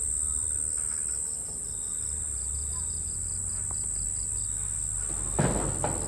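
Crickets trilling, a steady high-pitched chorus. Two short knocks about half a second apart near the end.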